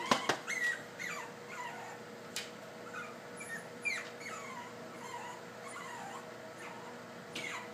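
Shih Tzu puppy whimpering: a string of short, high whines, each falling in pitch, coming about every half second.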